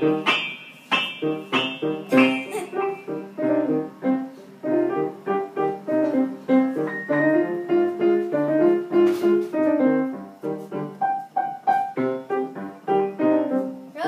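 Piano being played: a steady run of short notes making up a melody over a lower part.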